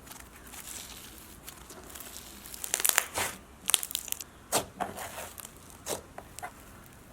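Microfloam slime worked by hand, its foam beads giving a soft crunch: quiet at first, then a run of short crackling crunches from about three seconds in.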